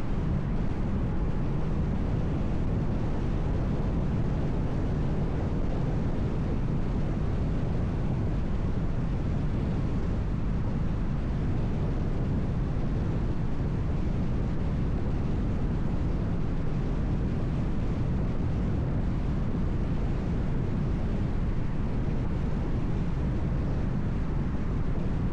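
Steady low road noise of a car driving: tyres and engine running without a break.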